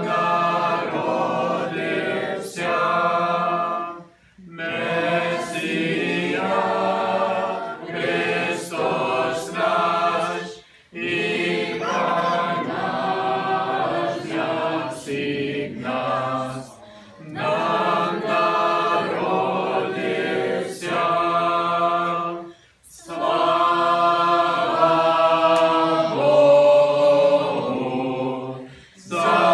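A mixed choir of children, teenagers and men singing a Ukrainian Christmas carol a cappella, in sung phrases of a few seconds with short breaks for breath between them.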